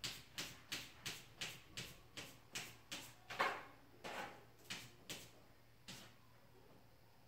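A cat's claws scratching at the plastic sides of its litter box instead of burying the litter: quick, rhythmic scrapes about three a second, with two longer, louder strokes midway, stopping about six seconds in.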